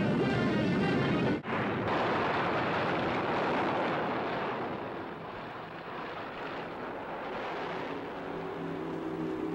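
Soundtrack explosion rumble under music, breaking off sharply about a second and a half in. A steady rushing noise follows and slowly fades, and soft music comes in near the end.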